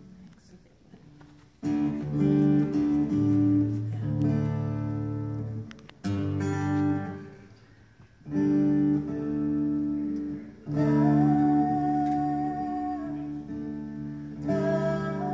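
Acoustic guitar strumming chords, each one left to ring and fade before the next, with short breaks between them.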